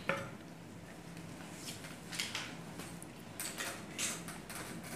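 Faint, irregular scratchy strokes and light handling of a marking tool drawing on fabric along an armhole curve ruler, over a low steady hum.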